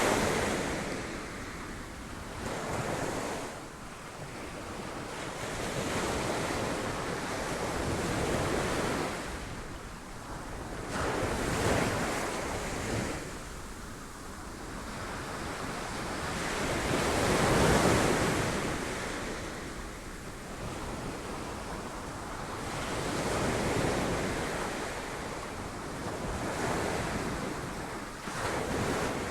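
Sea waves breaking on rocks, the rush of surf swelling and ebbing every few seconds as each wave comes in, the biggest about two-thirds of the way through.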